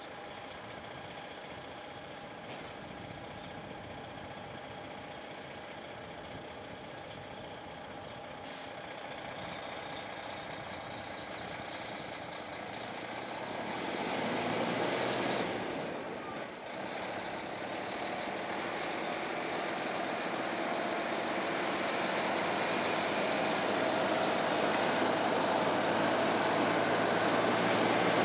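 Kenworth T950 heavy-haulage truck's diesel engine pulling a loaded low-loader, growing steadily louder as it approaches. The engine note surges about halfway through, drops briefly, then builds again.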